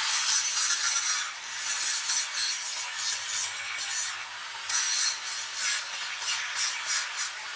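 Power tool working metal: irregular rasping and scraping strokes over the steady high whine of a spinning motor.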